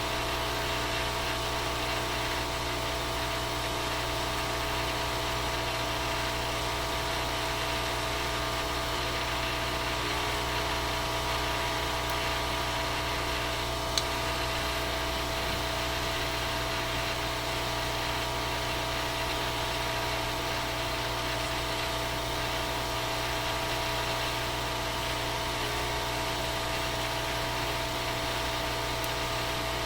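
A steady machine-like hum made of several held tones over a faint hiss, unchanging throughout, with a single sharp click about 14 seconds in.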